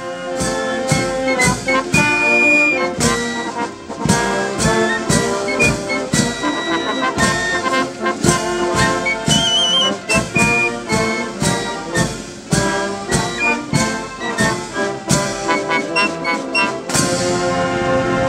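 Military brass band music: trumpets and other brass playing over a steady beat.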